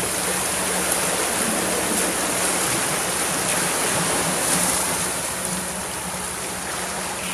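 Small sea waves washing against a rocky shore: a steady, even hiss of surf, with a faint steady low hum underneath.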